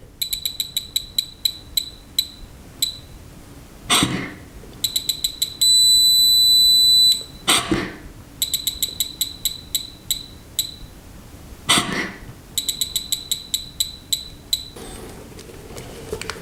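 A self-inflating resuscitation bag is squeezed sharply four times, each squeeze a short rush of air through a handheld spirometer. After each puff the spirometer gives a run of short high beeps that come quickly, then slow and stop. After the second puff it gives one long steady beep.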